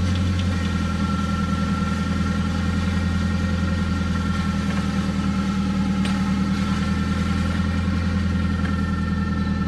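Nissan SR20DET turbocharged four-cylinder engine idling steadily while it warms up, a constant low hum.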